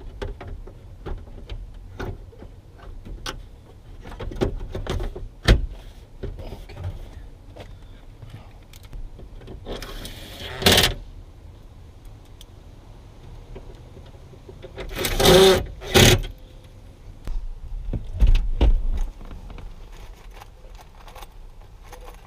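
Plastic dashboard trim panels being handled and fitted back under the steering column: scattered clicks and knocks, with louder scraping bursts about ten seconds in and twice around fifteen seconds in.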